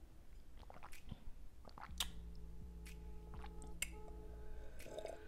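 A person sipping from a glass and swallowing, heard close up through a lapel microphone: quiet gulps with several short wet mouth clicks.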